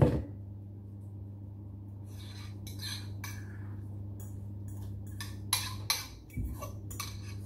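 A spoon scraping and knocking mashed avocado out of a bowl into a stainless steel mixing bowl: a run of short scrapes and clinks starting about two and a half seconds in, over a steady low hum.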